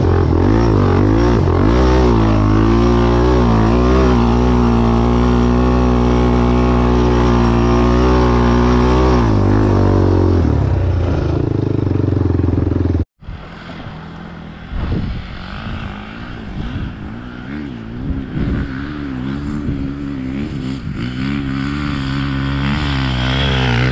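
Off-road engine running loud and steady with a slightly wavering pitch. It cuts off abruptly about thirteen seconds in, and a quieter engine follows, revving up and down and getting louder near the end.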